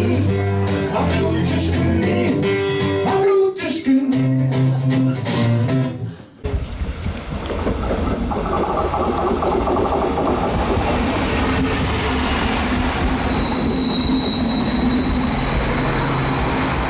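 Music with a steady beat for about six seconds, then an abrupt cut to a passenger train pulling into a station: a steady rumble of the train running in, with thin high wheel or brake squeals in the last few seconds as it slows to a stop.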